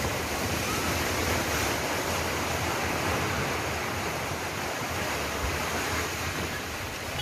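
Multi-storey apartment building collapsing in an earthquake: a steady, loud rush of noise from the falling rubble and the billowing dust cloud, without distinct crashes.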